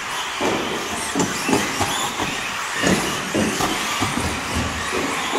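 Schumacher Cat L1 and other 1/10 electric RC off-road buggies running on a carpet track: brushless motors whining up and down in pitch over tyre noise, with a quick irregular run of short knocks and thumps from the cars on the track.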